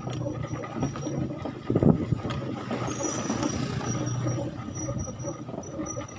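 Engine of the camera's vehicle running steadily while driving over a rough, potholed dirt road, with constant rattling and jolts, and a loud thump about two seconds in.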